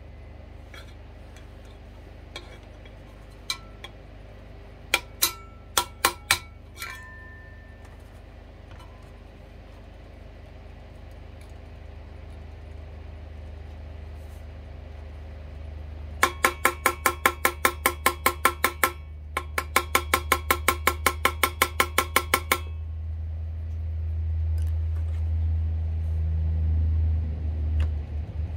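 Metal tapping on a record player's turntable platter to shock it loose: a few scattered knocks with a brief metallic ring, then two quick runs of rapid taps, about eight a second, each lasting two to three seconds. A steady low hum underneath grows louder near the end.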